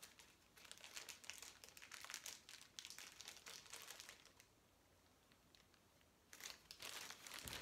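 Faint crinkling and rustling of a clear plastic sleeve being pulled off a new fishing rod. It stops about four and a half seconds in and picks up again near the end.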